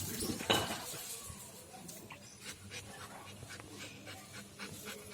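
Golden retriever puppy panting, with a loud, sharp sound about half a second in.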